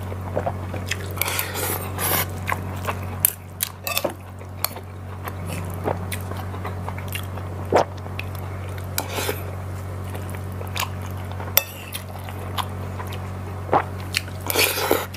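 Close-miked eating: a man chewing mouthfuls of rice and vegetables, with wet mouth noises. A metal spoon and fork clink and scrape on a ceramic plate, scattered sharp clicks throughout. A steady low hum runs underneath.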